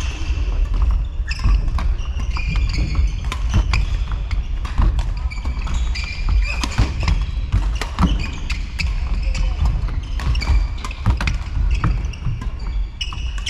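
Badminton play in a sports hall: many sharp racket-on-shuttlecock hits and footfalls on the court floor, with short high squeaks from shoes and voices in the hall.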